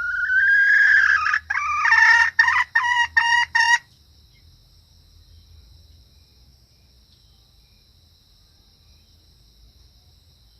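Junglefowl hen calling: one long note rising in pitch, then a quick run of about six short clipped notes, ending about four seconds in. A steady high insect trill, like crickets, runs underneath.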